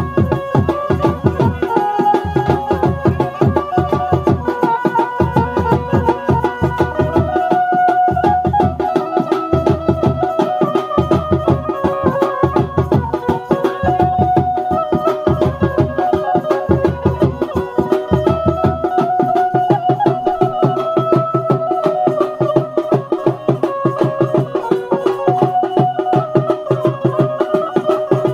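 Chhattisgarhi wedding band (baja party) music: drums beaten in a quick, steady rhythm under a melody of held notes. The deep drum strokes drop out about two-thirds of the way through while the melody and lighter percussion carry on.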